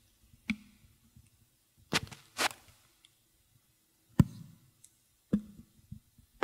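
Handling noise picked up close on a microphone: five irregular knocks and rubs, two in quick succession about two seconds in and the loudest just after four seconds, over a faint low hum.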